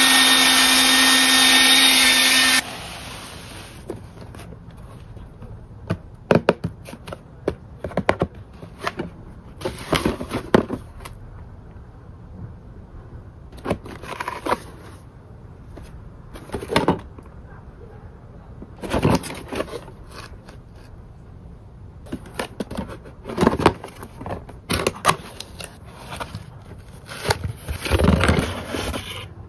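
Battery-powered toy bubble gun running, a loud steady whir with a held tone that cuts off abruptly about two and a half seconds in. Then hands handle and open a cardboard box: scattered rustling, scraping and light tapping of the packaging.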